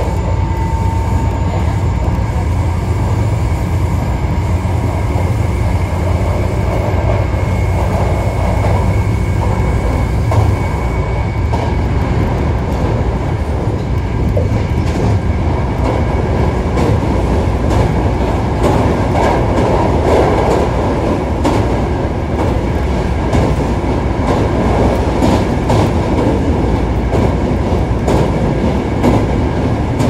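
Hankyu 1300 series electric train running steadily: continuous rumble of wheels on rail with faint steady whining tones, and rail-joint clicks that become more frequent in the second half.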